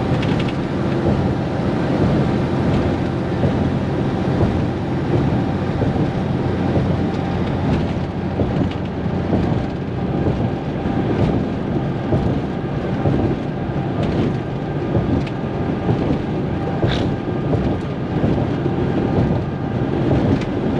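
Cabover Peterbilt 362 semi truck's diesel engine running steadily at highway cruise, heard inside the cab over steady road and wind noise. One short click comes late on.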